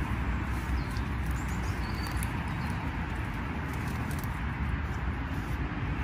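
Steady outdoor rumble and hiss in woodland, with a few faint bird chirps about one and a half to two seconds in and a few faint ticks as wild garlic leaves are picked by hand.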